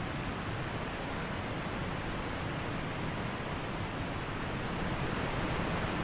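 Waterfall pouring over a rock ledge into a pool: a steady rush of falling, splashing water.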